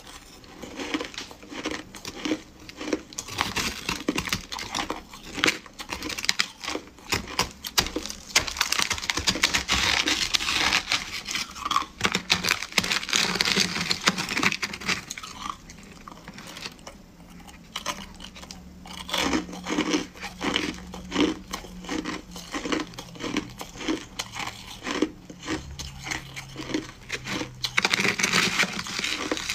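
Close, crisp crunching of shaved, refrozen ice being chewed, mixed with a metal spoon scraping and scooping through the ice in a plastic tray. The crunches come thick and fast, with a stretch of evenly spaced bites a little past the middle.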